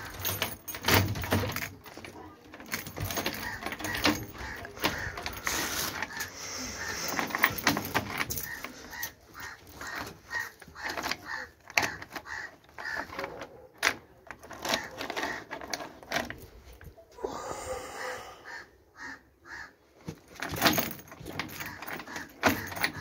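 A dog's metal chain rattling and clinking in irregular bursts as the chained puppy moves about, with scattered knocks.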